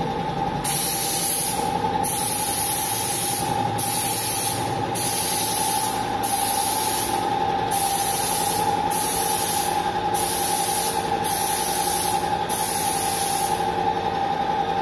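Compressed-air paint spray gun spraying paint in short bursts, about ten hisses of roughly a second each, as the trigger is pulled and released. A steady hum runs underneath.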